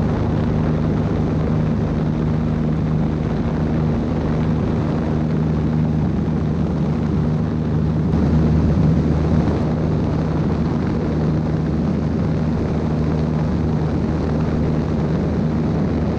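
Aviat A-1C Husky's four-cylinder Lycoming engine and propeller droning steadily in cruise, heard from a camera mounted on the aircraft, with a rush of airflow over it.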